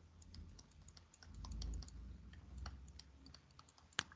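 Faint, quick, irregular clicks and taps of a pen stylus on a tablet screen as words are handwritten, with a soft low rumble around the middle and a sharper click near the end.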